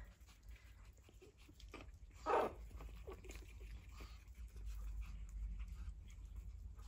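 Pug puppies moving about on a wooden floor, with light clicks and scuffles and one short puppy cry about two seconds in.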